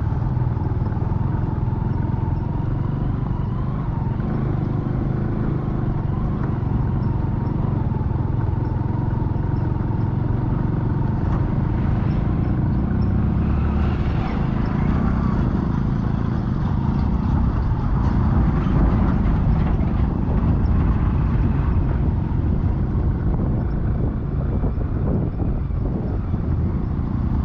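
Steady road-vehicle rumble of engines and tyres, swelling a little louder about halfway through.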